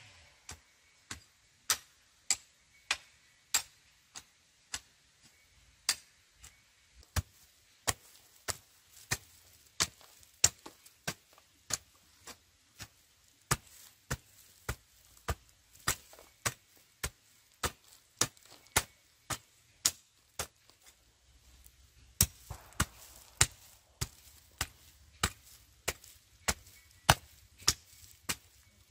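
Repeated sharp chopping strikes in an even rhythm of about two a second, with a short pause about two-thirds of the way through.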